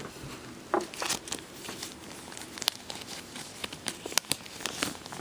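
Thin clear plastic bags crinkling as they are handled and pulled from their bundle: a string of irregular sharp crackles.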